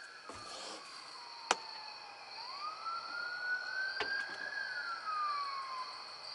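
Distant siren wailing in slow sweeps: its pitch falls, then rises over a couple of seconds and falls again. Two sharp clicks cut across it, the louder about a second and a half in and another near four seconds.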